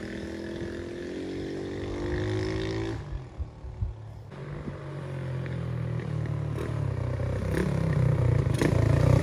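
Motorcycle engine, freshly rebuilt with a new cylinder and piston, running under way. Its note rises for about three seconds, drops back briefly, then builds again and grows louder toward the end.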